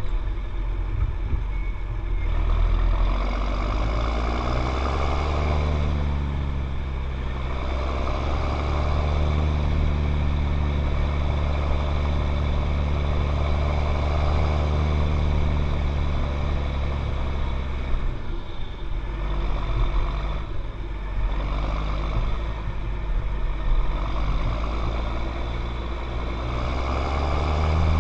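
John Deere 7710 tractor's six-cylinder diesel engine running. Its engine speed rises over the first few seconds, holds steady, dips for a few seconds about two-thirds through, then climbs again near the end.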